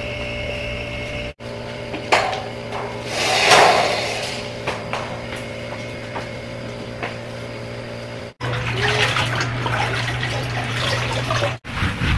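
Wet string mop swishing and splashing on a tiled floor over a steady hum, with a louder watery whoosh about three seconds in. The sound drops out briefly three times.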